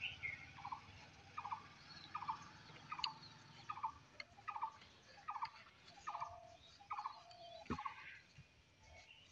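An animal calling in a steady series: about ten short rattling notes, one roughly every three-quarters of a second.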